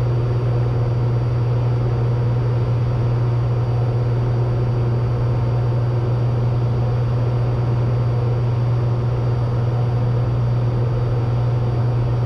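Steady drone of a Cessna 182T's six-cylinder Lycoming engine and propeller, heard from inside the cabin in level flight, a deep even hum with no change in pitch.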